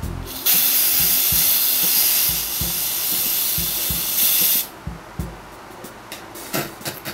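Aerosol can of temporary blue hair-colour spray hissing in one continuous spray of about four seconds onto a moustache, then cutting off suddenly.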